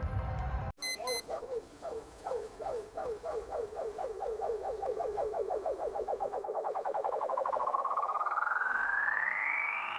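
Fireworks booming, cut off abruptly under a second in. Then comes a sound effect: a string of short chirping notes that come ever faster and climb in pitch, blending into a rising whine near the end.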